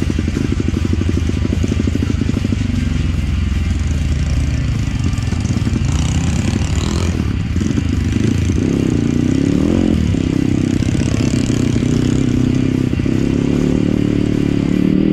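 Trail motorcycle's engine running while riding along, its pitch rising and falling with the throttle, with a quick rev up and back down about ten seconds in.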